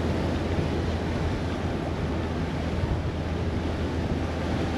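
Wind buffeting the microphone with a steady low rumble, over the constant wash of ocean surf.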